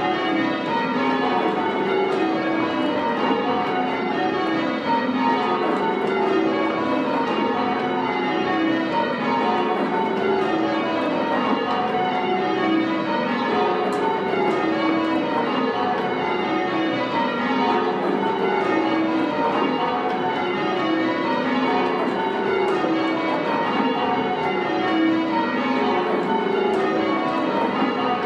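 Eight church bells of an 11 cwt ring of ten (Whitechapel, Mears and Stainbank, and Thomas II Mears bells) rung full circle in changes. Stroke follows stroke in a steady, rapid rhythm, in rows that step down in pitch. The tenor has a poor tone, which the ringer likens to a skip hung for ringing.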